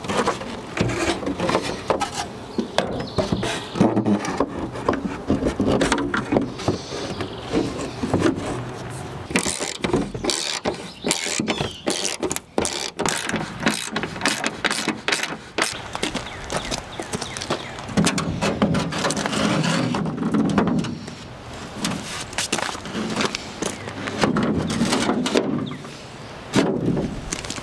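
Socket ratchet clicking as fender bolts are run in, mixed with knocks and rattles of the body panel being handled and fitted.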